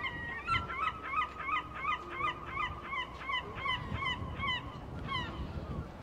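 Gull calling overhead: a long call of repeated laughing notes, about four a second, that runs for some five seconds and stops just after 5 s.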